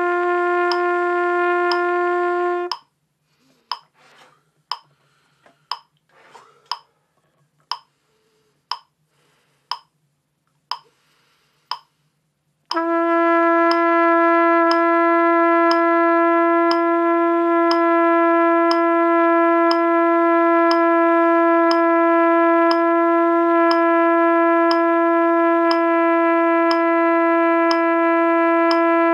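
Trumpet holding a steady long tone (written G) that stops about three seconds in. A metronome then clicks once a second through a rest of about ten seconds. About thirteen seconds in, the trumpet starts a new long tone a half step lower (written F#) and holds it, with the metronome still clicking.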